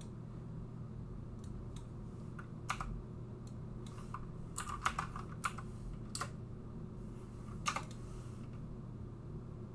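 Computer keyboard keystrokes and mouse clicks, a handful of sharp irregular taps with a quick cluster around the middle, as a number is typed into a field and deleted with backspace. A steady low hum runs underneath.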